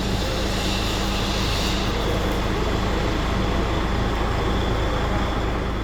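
A machine running steadily: a continuous low hum with a hiss over it, the highest hiss thinning out about two seconds in.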